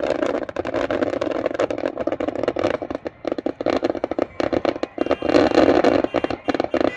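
Dense barrage of fireworks: rapid crackling pops over a continuous din, thinning out about three seconds in and swelling again after five.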